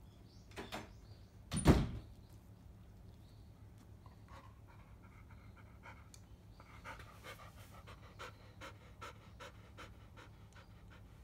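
Black field-line Labrador retriever panting, short even breaths about three a second. Before the panting comes in there are two sharp knocks, the second and louder one about two seconds in.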